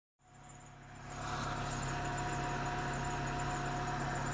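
Dacia Logan 1.6 petrol engine running cold, with a steady high-pitched whistle over the even engine hum.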